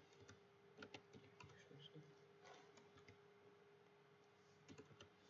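Faint computer keyboard keystrokes, a scattered handful at irregular intervals, over a steady faint hum.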